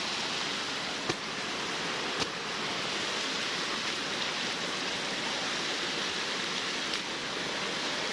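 Steady rush of a flowing mountain stream, with two short knocks about one and two seconds in.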